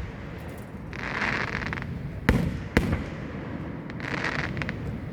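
Aerial fireworks bursting: two sharp bangs about half a second apart near the middle, between stretches of crackling noise.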